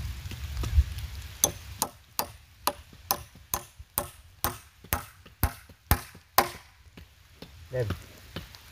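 A machete chopping into wood: about a dozen sharp strikes, roughly two a second, stopping a couple of seconds before the end.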